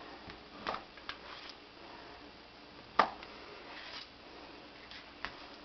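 Chef's knife chopping down through a semi-moist dog food roll onto a plastic cutting board: a handful of separate knocks, the sharpest about three seconds in.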